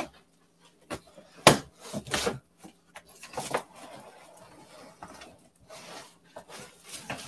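Cardboard box and styrofoam packing being handled as a boxed heat press is lifted out. There is a sharp knock about a second and a half in and another just after, then rubbing and rustling of foam and plastic wrap.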